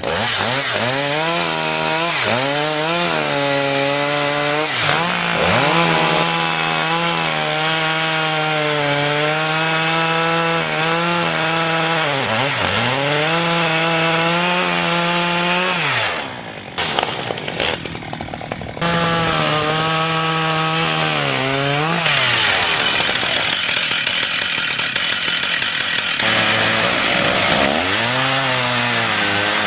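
Chainsaw cutting into an ash log, its engine revving high and dipping in pitch several times as it loads up in the wood and recovers, with a short break about 16 seconds in. Near the end the saw is running in a chainsaw mill, ripping lengthwise along the log.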